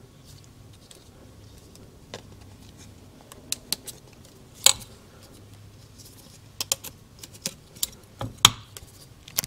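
Irregular light clicks and taps of hands working a paper base gasket down over the cylinder studs of a Suzuki TS250 two-stroke crankcase, with the piston on its rod being handled, the sharpest taps in the middle and near the end, over a faint low hum.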